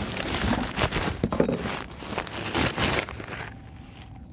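Handling noise on a phone's microphone: fingers rubbing and knocking on the phone give a dense crackling rustle with sharp clicks, which stops about three and a half seconds in.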